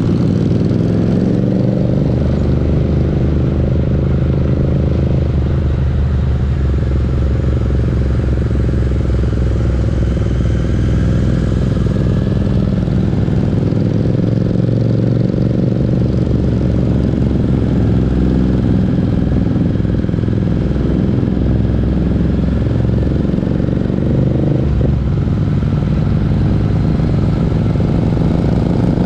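Parallel-twin motorcycle engines and exhausts running on the road, the engine note rising and falling steadily with throttle and gear changes.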